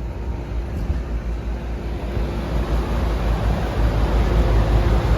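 Rooftop HVAC unit running, just started in heating mode: a steady low rumble that grows louder, with a faint steady hum, over wind on the microphone.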